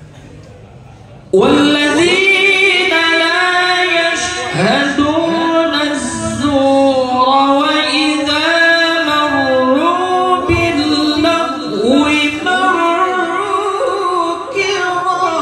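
A young male qari reciting the Quran in the melodic tilawah style into a microphone. His voice is high and full of long held notes that bend and turn, and it comes in suddenly about a second in, after a quiet stretch.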